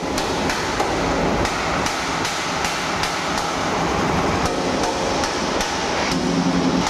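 Chipping hammer striking welded steel plate in a steady run of light blows, about two to three a second, knocking slag off fresh stick welds.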